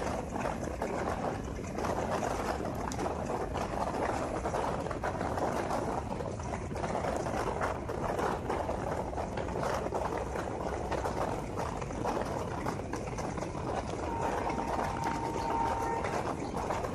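Passenger train running at speed, heard from an open coach door: a steady rush of wheels on rail and air, thick with rapid rattling clicks and knocks. A faint steady tone sounds for about two seconds near the end.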